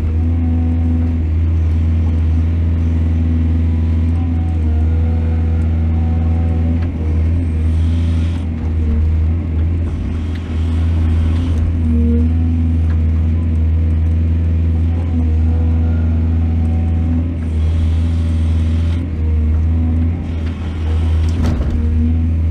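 Heavy diesel engine of an excavator running steadily under load, with a few short bursts of higher noise from the digging and loading, and a sharp knock near the end.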